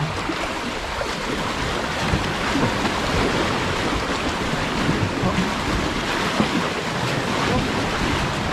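Rough sea waves surging and splashing between concrete tetrapod blocks: a steady rushing wash of water. Wind gusts on the microphone mix in.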